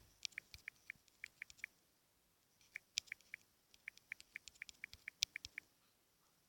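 Typing: quick, irregular, light key clicks, several a second, pausing for about a second around two seconds in and again near the end.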